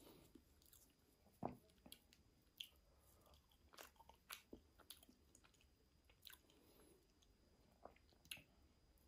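Faint, close-miked chewing and biting of a meal of breaded chicken and grilled potatoes: irregular soft mouth sounds with scattered crisp crunches, the sharpest about a second and a half in.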